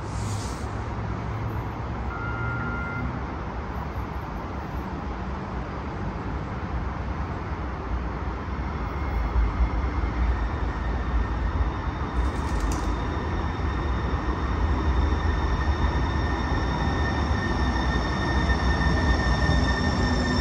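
Sound Transit Link light rail train approaching and pulling into the station: a steady rumble growing louder, with a high whine of several steady tones setting in about halfway through.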